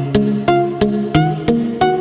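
Background music: a melody of short, sharply struck notes that die away, about three notes a second at an even pulse.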